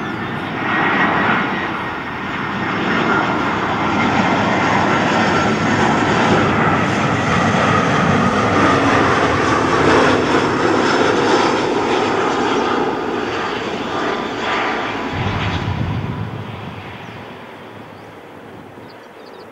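Airbus A320-family jet airliner on final approach with gear down, passing by: a loud rush of jet engine noise with a high whine over it, swelling as it nears and fading away over the last few seconds as it moves off toward the runway.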